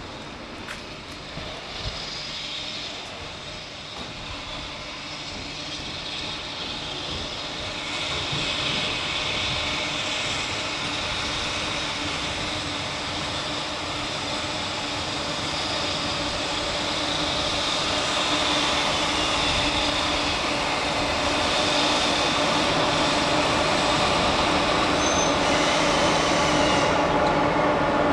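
Two coupled JNR Class EF64 electric locomotives running light, rolling slowly closer and growing steadily louder, with a steady hum and the clatter of wheels on the rails.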